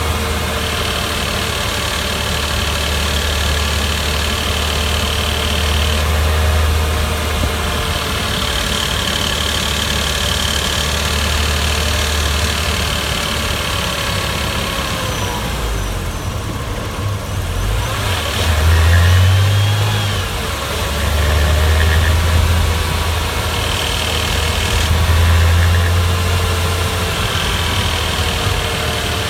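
Porsche Boxster 986 S 3.2-litre flat-six engine running, a steady low hum with higher tones over it; it eases off briefly a little past halfway, then swells again a few times.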